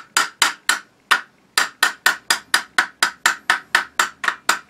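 Mallet tapping repeatedly on an IWI Tavor X95 Micro's barrel to drive a stuck barrel out of the receiver. The taps are gentle, sharp and evenly spaced, about four a second, with a short pause about a second in.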